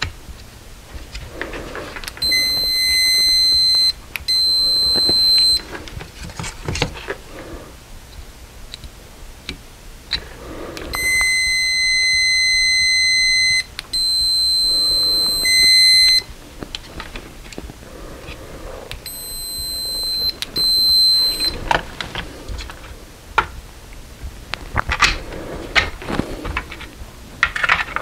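Multimeter continuity beeper sounding a steady high-pitched tone whenever the test leads make contact, in six stretches of one to two and a half seconds that come in three pairs, each pair broken by a brief drop-out. Between the beeps come faint clicks and rustles of the leads being handled.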